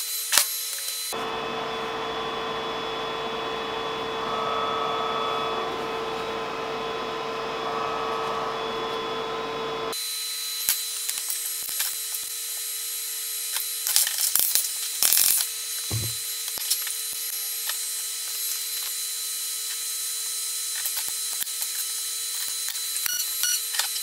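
Pulse MIG welder laying a bead on a steel bracket: a steady hissing run of about nine seconds that starts and stops abruptly. It is followed by gloves and tools being handled on a steel bench, with scattered clicks, knocks and one dull thud.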